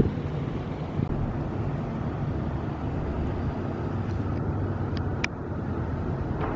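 Steady low rumble of passing road traffic, with a short sharp click about five seconds in.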